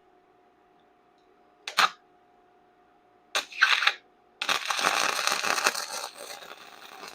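Electric arc welding on thin, rusted steel of a car frame: three bursts of crackling arc, a short one about two seconds in, another just after three and a half seconds, then a longer run of about three seconds. The metal is thin enough that the weld burns holes through it.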